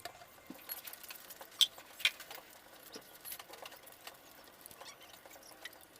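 Small scattered clicks and scrapes of hand tools on the valve cover of a Kawasaki Barako 175 engine as the cover is taken off, with two sharper clicks about one and a half and two seconds in.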